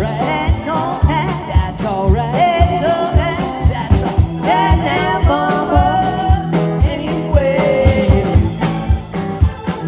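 Live rock-and-roll band playing: electric guitar, bass, keyboard and a drum kit, with a gliding melody line over a steady kick-drum beat.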